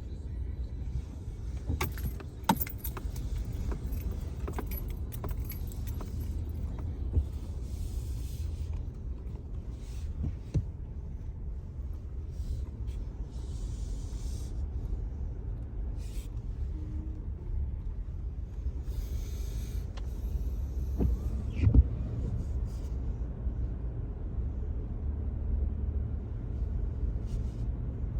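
A car engine idling steadily under snow clearing, with scattered knocks and scrapes from snow being brushed and scraped off the car. The loudest knock comes a little after the middle.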